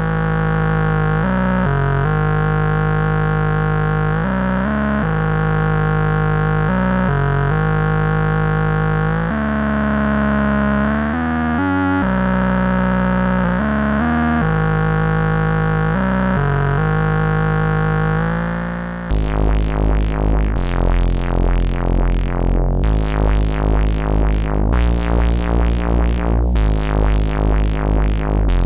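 Mutuca FM all-analog synthesizer played from its push-button keyboard, with a warm, rich tone. It first plays a slow melody of held notes changing about once a second. About two-thirds through it switches to a brighter, rhythmic figure of short, plucked-sounding notes, about two a second.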